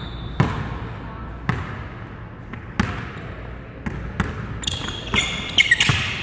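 Basketball dribbled on a hardwood gym floor: a few bounces about a second apart, then quicker ones in the second half, with sneakers squeaking on the floor near the end.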